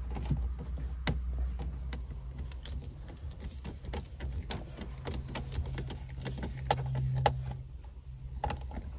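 Small screws being threaded in by hand into the metal mounting bracket of a car radio unit: light, irregular clicks and ticks of fingers, screw and plastic trim. A steady low hum runs underneath.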